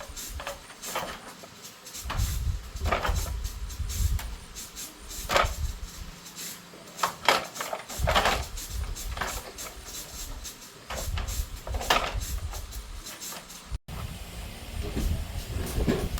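Handling of tools and metal parts during motorbike engine work: irregular knocks and clinks, one every second or so, with patches of low rumble between them.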